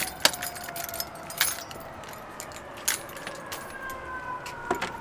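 Keys jangling with a string of sharp metallic clicks and handling knocks, over a faint long tone that slowly falls in pitch.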